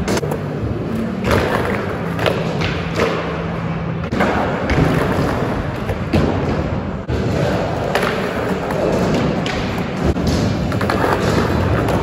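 Skateboard wheels rolling over smooth concrete, with repeated thuds and clacks of boards striking the floor and ledge.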